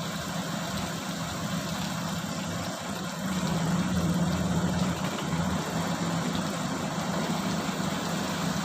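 Heavy machinery's diesel engine running steadily, from the crane or backhoe at work lowering the backhoe into a drain; the engine note gets louder about three seconds in, as if taking up load.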